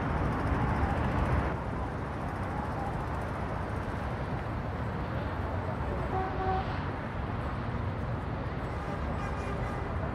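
Street traffic ambience: a steady rumble of passing motor vehicles, a little louder for the first second and a half.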